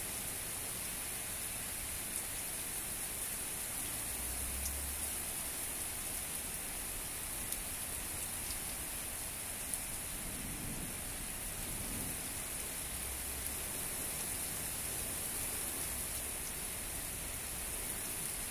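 Heavy rain from a downburst storm pouring steadily onto the street and grass, with a few sharp ticks scattered through it.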